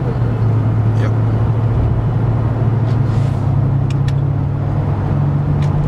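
Car engine and road noise heard from inside the moving cabin: a steady low drone that rises slightly in pitch a little past halfway through.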